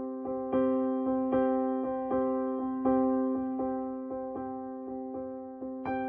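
Background piano music: a steady run of struck notes, each fading before the next, with higher notes joining near the end.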